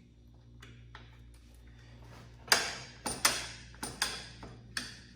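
Sharp metallic clicks and clinks from the ATV's CVT drive clutch parts being handled by hand: about seven in two and a half seconds, starting about halfway through, the first one the loudest, over a faint steady hum.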